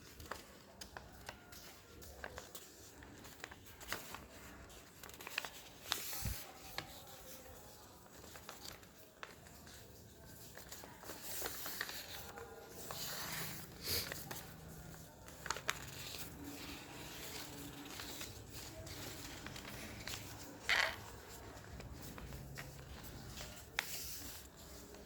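A sheet of paper being handled and folded by hand: irregular soft rustles and crinkles with scattered light taps. The loudest brief rustle comes about twenty-one seconds in.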